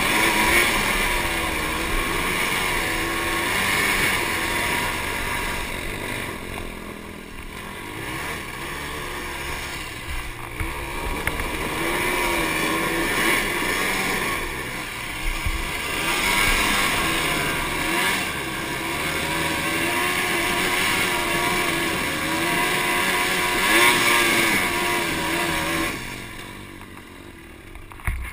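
Honda sport quad's engine run hard under throttle, its pitch climbing and dropping again and again through throttle and gear changes, with wind rushing over the microphone. Near the end the engine eases off and the sound drops.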